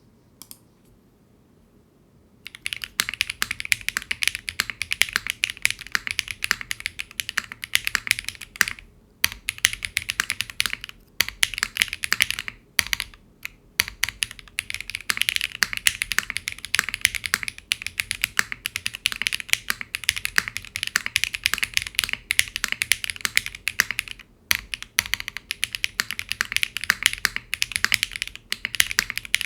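Fast continuous typing on a mechanical keyboard with HMX Yogurts long-pole linear switches in an aluminium plate with no foam, GMK Metropolis keycaps: a dense clack of keystrokes. It starts about two and a half seconds in, with a few short pauses.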